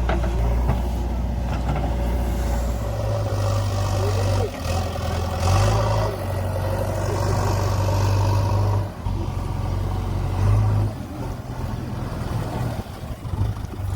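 JCB backhoe loader's diesel engine running, its note stepping up and down several times as the revs change.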